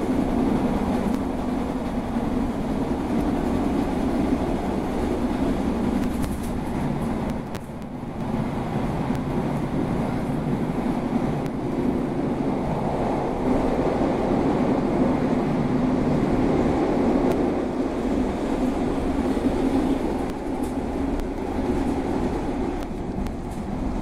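CTA 2600-series rapid-transit railcar running at speed, heard from inside the car: a steady noise of wheels on rail and motors, dipping briefly about eight seconds in.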